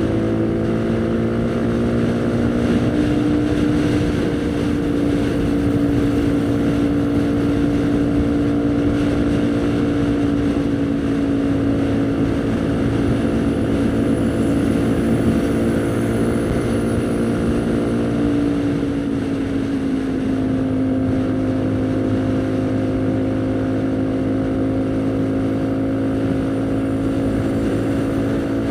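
Haojue NK150's single-cylinder four-stroke engine running steadily while riding, its note rising slightly about three seconds in and easing a little lower about two-thirds of the way through.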